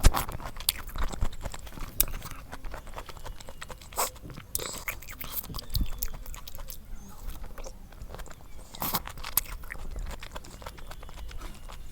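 A person chewing food close to the microphone, with irregular crunching and mouth clicks.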